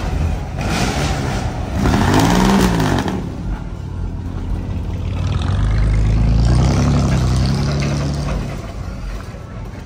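Car engines going by. One rises and falls in pitch about two seconds in. A second, deeper one swells and fades between about five and eight seconds.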